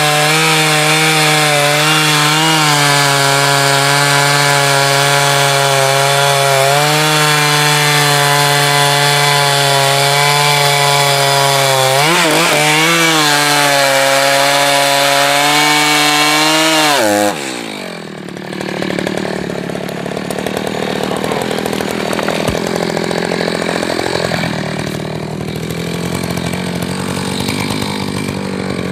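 Echo two-stroke chainsaw running at full throttle through firewood with a sharp new chain, its engine note held high with one brief dip and recovery under load. About 17 seconds in the throttle is released and the pitch falls sharply; the saw then runs quieter.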